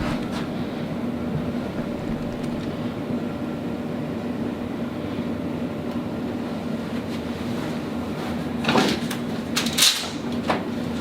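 Steady hum of room equipment with a faint constant tone. About nine to ten seconds in come three short, sharp sounds, the second the loudest.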